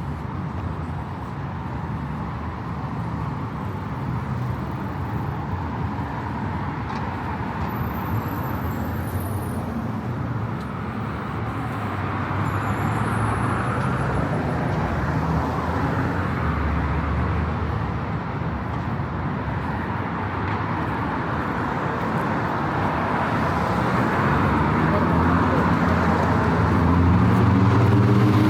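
Steady city street traffic noise, with a vehicle engine growing louder over the last few seconds as it approaches.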